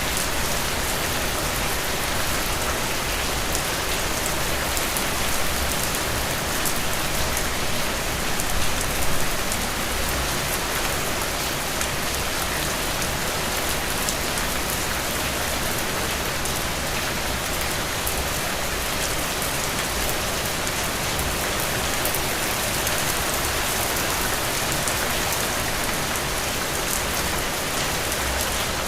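Steady rain falling, an even hiss of many small drop impacts, with a brief swell about eight seconds in.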